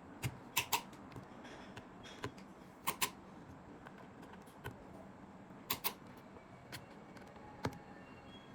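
Torque screwdriver driving tiny phone screws: scattered light clicks and ticks, some coming in quick pairs, with quiet between them.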